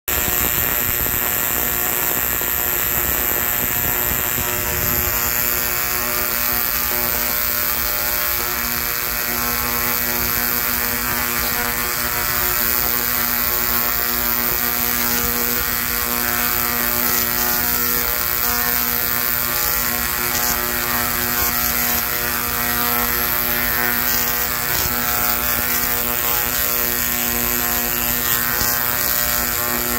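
Large Tesla coil firing continuous arcs into the air, its discharge making a loud, steady buzz.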